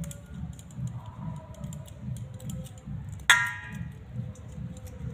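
Steamed grapes being plucked from their stems by hand and dropped into a perforated stainless-steel colander: scattered soft clicks and taps, with one sharp metallic clang about three seconds in that rings briefly as the steel bowl is struck.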